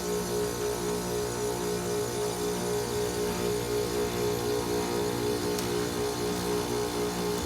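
2008 Bryant Preferred Series heat pump's compressor humming steadily during its defrost cycle, with a wavering, pulsing beat of about three throbs a second in its tone.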